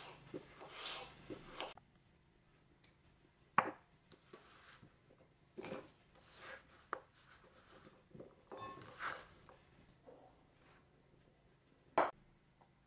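Kitchen knife slicing through raw potato on a wooden cutting board, followed by scattered knocks and scrapes as the potato cubes are gathered off the board into a ceramic bowl. A single sharp knock comes near the end.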